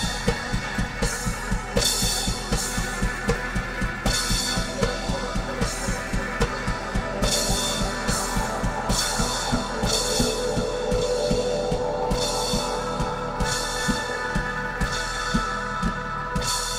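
Live band playing with a full drum kit: a steady, driving kick-drum beat and repeated cymbal crashes under sustained melody lines.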